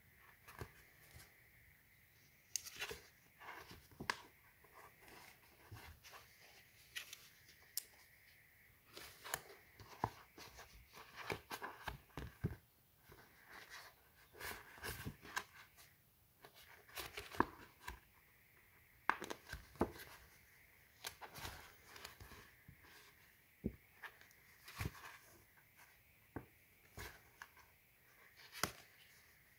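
Thin scored polypropylene sheet being folded and creased by hand: faint, irregular plastic clicks and crinkly rustles as the score lines are bent.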